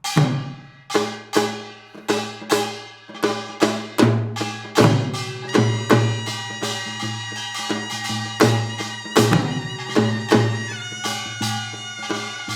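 Korean pungmul farmers' percussion music: a run of drum strikes at a steady beat, with ringing metal gong tones sustained under them from about halfway through.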